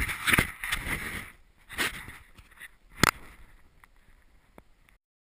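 Handling and wind noise on the camera microphone, with a few sharp knocks. The loudest knock comes about three seconds in. The sound then dies away and cuts off to silence just before the end.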